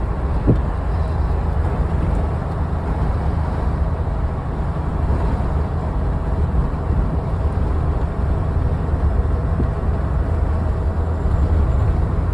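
Steady road and wind noise from a vehicle driving at speed on a highway, a dense low rumble, with one short click about half a second in.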